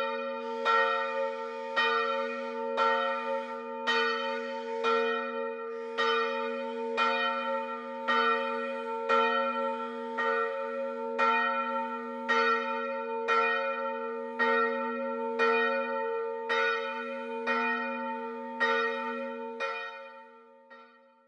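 Church bells ringing, a strike about once a second over a steady hum, dying away near the end.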